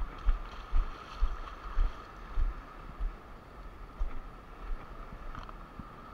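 Short low thumps about twice a second, from footsteps jolting a wearable first-person camera while walking over shoreline rock, with a steady wash of sea surf and wind hiss behind. The thumps weaken in the second half.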